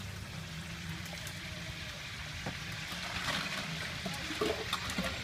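Outdoor street ambience: a steady low hum with faint background voices and a few light clicks in the second half.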